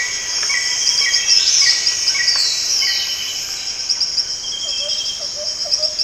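Natural forest ambience: insects trilling steadily with birds calling over them in repeated short chirps and a few falling whistles. A lower call repeats several times a second, starting about two-thirds of the way in.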